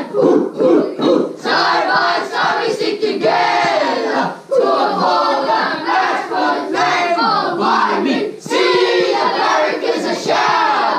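A junior football team of boys singing their team song together loudly in a huddle, many voices at once.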